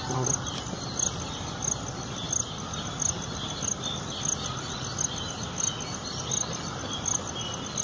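Insect chirping outdoors: a short high-pitched pulse repeating evenly about three times a second, with faint bird chirps behind it.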